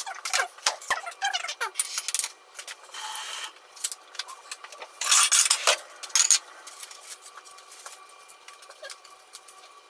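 Dishes and utensils clinking and clattering on a kitchen countertop, with a louder rustling burst and a few sharp knocks about five seconds in, as a foil-lined tray and a ceramic plate are handled.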